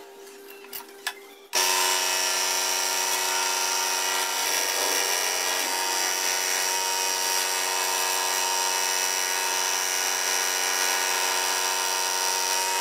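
Small benchtop scroll saw switched on about a second and a half in, then running with a steady, even whine as its blade cuts a thin piece of wood. A few light clicks come before it starts.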